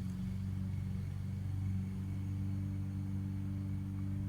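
Engine idling steadily: an even low hum with a fast, fine pulse underneath.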